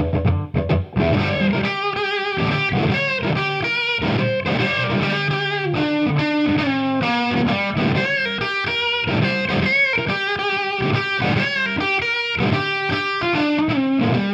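Electric guitar played through a hand-wired JTM-45-style tube amp head (StewMac '62 Brit-Plex kit), overdriven to a crunch with no reverb or other effects. A busy line of quick picked notes and short chord stabs, some notes held with vibrato.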